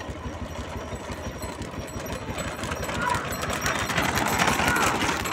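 Motorcycle and scooter engines running with a rapid pulsing beat, getting louder from about three seconds in, with shouting voices over them near the end.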